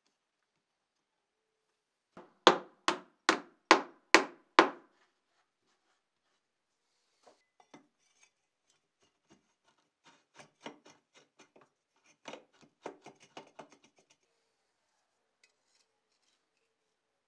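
Six sharp knocks on the wooden box bellows, about two and a half a second, as it is knocked into place. Several seconds later come lighter, quicker clicks and knocks as the metal air pipe is fitted into the bellows' outlet.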